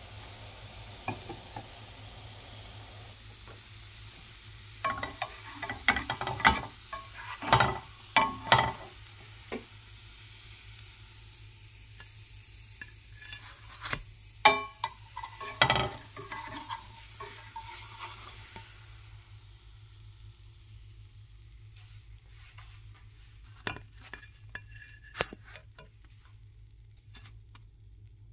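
French toast sizzling in a nonstick frying pan, with a utensil scraping and knocking against the pan in two loud clusters as the slices are lifted out onto a plate. The sizzle dies down, and a few light clicks follow near the end.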